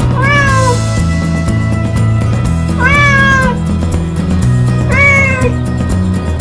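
Bengal cat meowing three times, each meow rising then falling, about two seconds apart, over background music with a steady beat.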